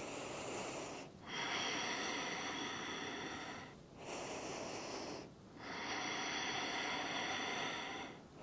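A woman breathing deeply and audibly: four long, even breaths of about one to two and a half seconds each, with short pauses between them.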